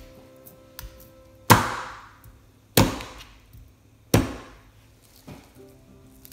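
Three heavy chops of a chef's knife cutting an ear of corn into rounds on a plastic cutting board, each a sharp knock, about a second and a half apart, with a lighter knock or two between.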